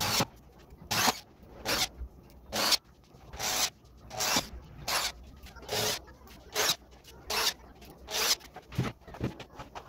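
Rhythmic hand rubbing on the wooden cabinet: about a dozen short scraping strokes, roughly one every three-quarters of a second.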